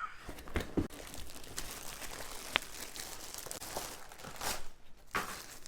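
Packaging rustling and crinkling as a new appliance is unpacked, with scattered clicks and a couple of louder rustles near the end.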